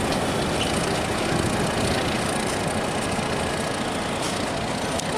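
Diesel locomotive engine running steadily as it pulls a passenger train slowly out of the station yard.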